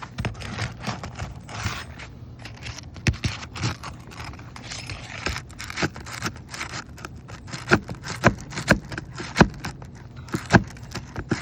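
Old, brittle 3-tab asphalt roof shingles being worked loose and lifted: a rough scraping with irregular sharp cracks and clicks, which come more often and louder in the second half.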